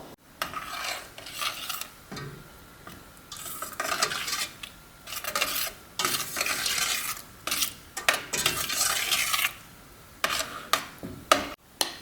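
A utensil stirring and scraping a thick mixture in a bowl, in a series of strokes about a second long with short pauses between them.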